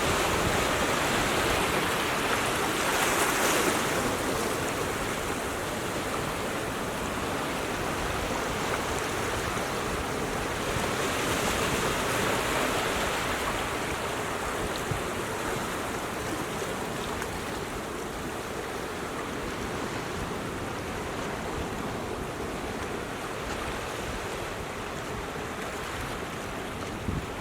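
Ocean surf washing against a rocky shore: a steady rush of water, swelling about three seconds in and again around eleven to thirteen seconds, then easing.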